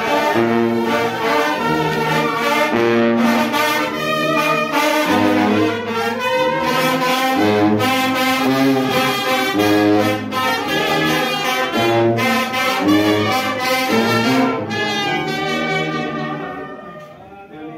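Brass band playing a tune, trumpets and trombones over a pulsing bass line; it fades out near the end.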